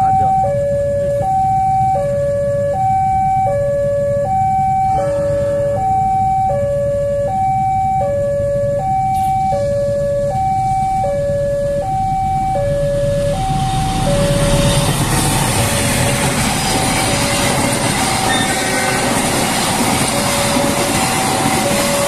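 Level-crossing warning alarm sounding a two-tone electronic chime, a high note and a lower note alternating evenly, each about half a second long. From about thirteen seconds in, a passenger train passes: a rising rumble and rush of wheels on rails that swamps the chime, which keeps sounding underneath.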